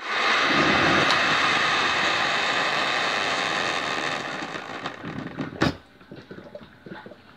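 One-cup hot water dispenser running and pouring a stream of hot water into a mug: a loud, steady rush that tails off after about four seconds into a thinning trickle. A single sharp click comes near the end of the pour.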